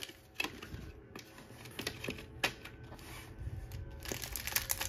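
Trading-card packs and their cardboard box being handled: scattered clicks and wrapper crinkles, with a denser crackle near the end.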